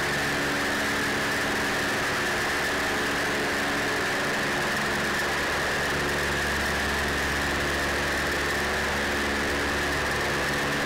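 The B-25 Mitchell's twin Wright R-2600 radial engines running steadily, heard from inside the bomber's nose compartment. It is a dense, even engine noise made of many steady tones, with a steady high tone above them.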